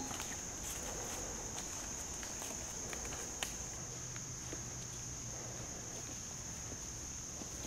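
Steady high-pitched drone of insects in summer woods, with faint scattered ticks and one slightly sharper click about three and a half seconds in.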